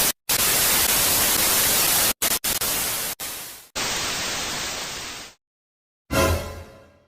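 Hissing static sound effect in three blocks, each cutting off abruptly, the last one falling slightly in level. Near the end a brief pitched sound fades out.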